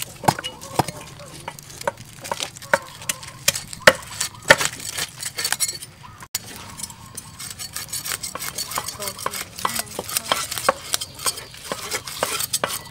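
Baby corn being husked by hand: irregular sharp snaps and tearing as the green husks and silk are stripped from the ears, with a denser crackling after about six seconds.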